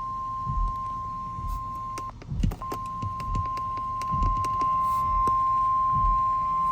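Weather radio warning alarm tone: a steady, single-pitch beep, broken briefly about two seconds in, that signals a severe weather warning is about to be read. Soft low thumps repeat underneath it.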